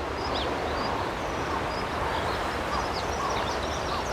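Several small birds chirping, short quick calls scattered throughout, over a steady background hiss.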